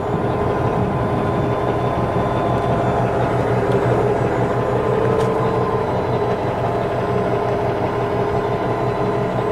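Kenworth T660 semi truck's diesel engine idling steadily, running to build air pressure for the newly replaced sleeper airbags.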